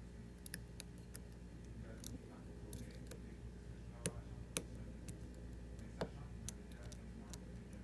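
Small, scattered metallic clicks and ticks of a lock pick and tension wrench working the pins inside a Medeco Biaxial lock cylinder, with a few sharper clicks about four and six seconds in.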